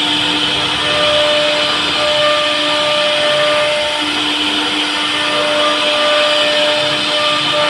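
CNC router spindle running while its bit carves wood: a steady motor whine over a constant cutting hiss, with humming tones that drop out and return every second or two as the cut goes on.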